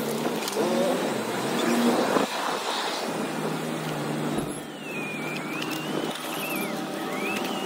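Sped-up street sound from a city bicycle ride: a steady rush of traffic and wind noise, with a high wavering whistling tone through roughly the second half.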